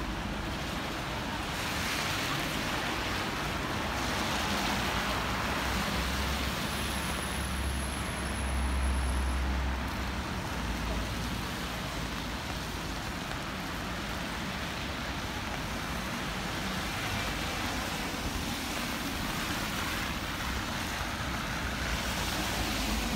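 Traffic on a rain-wet city street: tyres hissing on wet asphalt as cars pass, the hiss swelling and fading, over the steady hiss of rain. A deep low rumble from a vehicle passing close swells for a few seconds about a third of the way in.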